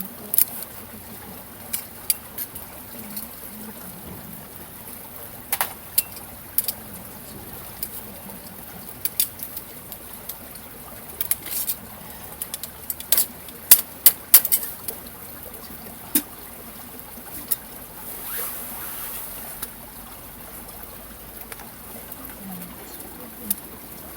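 Steady hiss of flowing river water with many irregular sharp clicks and crackles over it, thickest around the middle, and a brief swell of rushing noise near the end.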